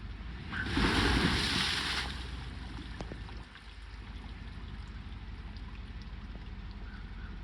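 Stuck pickup truck's engine running, with a loud rush of wheel spin about a second in, the tyre churning mud and water for a second or two before it eases off: the wheel is spinning without gaining traction.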